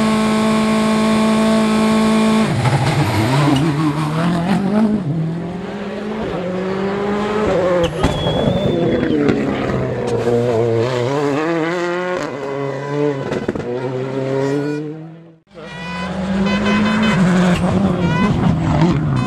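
World Rally Car engines, turbocharged 2.0-litre four-cylinders, revving up and down hard through gear changes as the cars pass on a rally stage. The sound breaks off abruptly about fifteen seconds in, and another car's engine comes in straight after.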